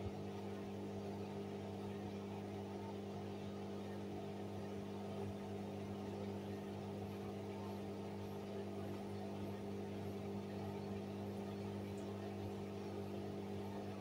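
Hoover front-loading washing machine draining after a rinse: the drain pump runs with a steady hum while the drum empties.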